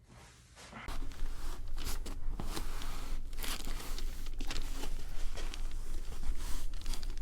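Continuous rustling and rubbing of clothing and hands, with scattered short crackles, starting suddenly about a second in as the patient is handled for a chiropractic neck adjustment.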